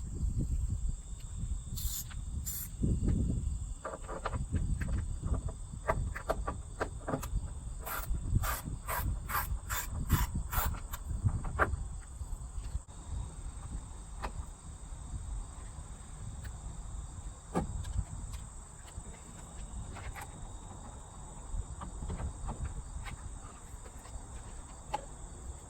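Ratchet and T30 Torx socket clicking as the screws holding the liftgate trim panel are backed out, with a run of evenly spaced clicks, about three a second, roughly a third of the way in, among scattered tool-handling knocks. A steady high insect chirring runs underneath.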